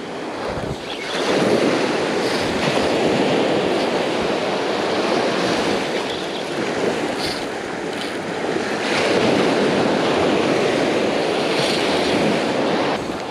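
Surf breaking on a beach: a steady rush of waves that swells about a second in and again past the middle.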